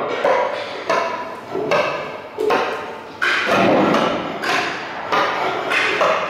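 Bass clarinet played with extended techniques in free improvisation: a run of sharp, percussive attacks about every half second, each with a short pitched tone that dies away.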